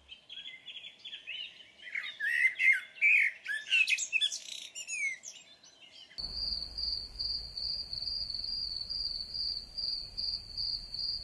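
Birds chirping and calling, many short overlapping calls, for about six seconds. The sound then switches abruptly to a steady, high insect trill that pulses about twice a second over a faint low rumble.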